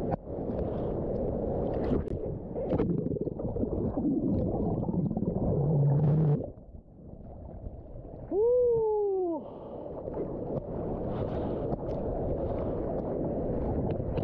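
Rushing water and wind noise from big ocean surf, with one high hoot about eight seconds in that rises and then falls in pitch.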